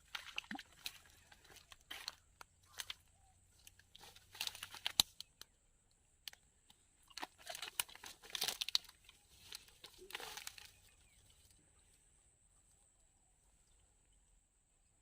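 Bursts of crinkling and rustling with sharp clicks, several over about ten seconds, loudest about four and eight seconds in, then it dies away.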